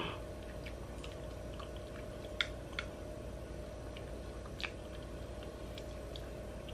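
Quiet eating sounds: a few faint clicks of a metal spoon on the glass container as mashed avocado is spooned up and eaten, over a faint steady hum.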